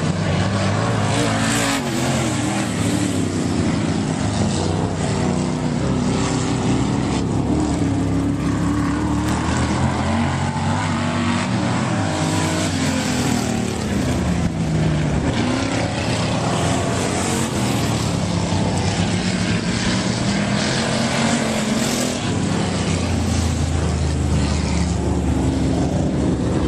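Dirt-track stock car engines revving as the cars lap the oval: the engine note rises and falls again and again as they drive through the turns and down the straights.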